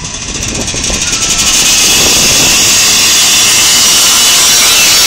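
Supermoto motorcycle engine revving hard as the bike launches from the start line. It grows louder over the first second or so, then stays very loud and harsh close by.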